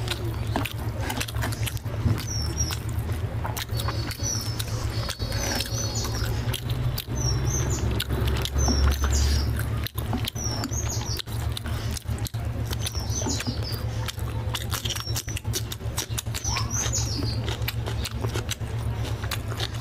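Close-miked eating sounds: fingers tearing crisp whole fried tilapia and mouth chewing, a dense run of small crackles and clicks. Faint high chirps recur every second or so over a steady low hum.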